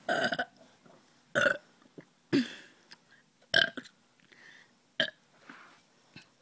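A girl burping repeatedly, five short separate burps, brought up after drinking Dr Pepper soda.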